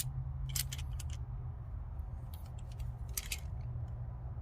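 Scattered light metallic clicks and clinks of 10-inch pliers wrenches being handled and adjusted, over a steady low hum.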